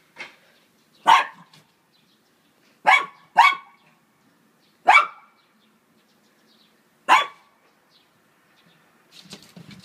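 Small shaggy dog giving five sharp play barks at a rabbit, single barks a second or two apart, with two in quick succession about three seconds in.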